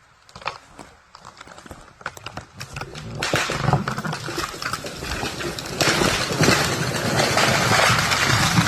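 A large felled tree coming down: scattered cracks of splitting wood, then from about three seconds in a loud rush of breaking branches that grows louder about halfway through.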